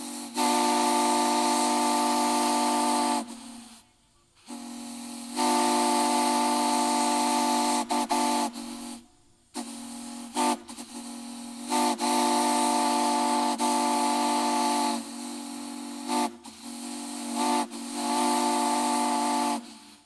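Steam whistle sounding a chord of several steady tones: four long blasts with short toots between them, and a softer steam hiss in the gaps between blasts.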